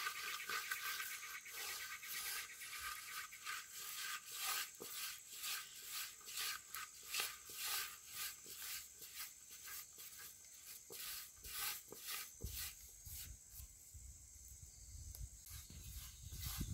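Hand rubbing and working damp finger millet flour against a metal basin, a run of scratchy rubbing strokes as the flour is mixed into crumbs for puttu. A low rumble joins near the end.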